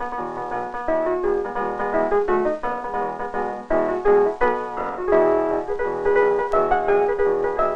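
Solo piano accompaniment playing a lively tune with quick repeated notes, as for a silent cartoon.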